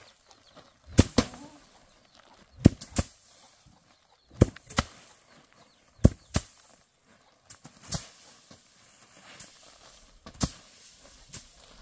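Sharp knocks, mostly in pairs a fraction of a second apart, repeating about every one and a half to two seconds.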